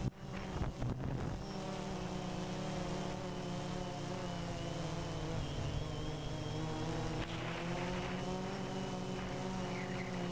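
DJI Phantom 2 quadcopter's electric motors and propellers buzzing steadily in flight, picked up by the camera mounted on it, with the pitch wavering slightly as the motors adjust. Wind rushes over the microphone.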